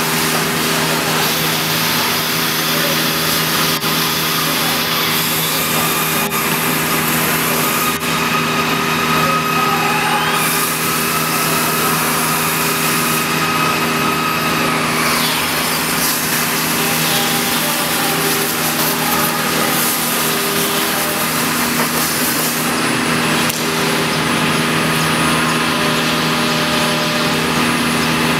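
CNC router machining a wooden panel: the machine runs with a steady hum, while the spindle's higher whine glides and shifts in pitch over the hiss of the bit cutting wood.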